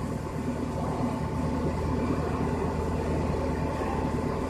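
CNC milling machine with a 2-flute end mill, spindle at 12,000 rpm, side-milling a block under flowing coolant: a steady machining hum with a thin, constant high whine.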